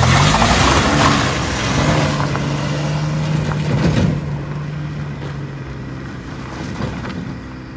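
A vehicle's engine pulling away and rising in pitch briefly about a second in, under a loud rush of tyre noise. The sound drops after about four seconds and fades as the vehicle drives off, its wheels held on with Vise Grips in place of lug nuts.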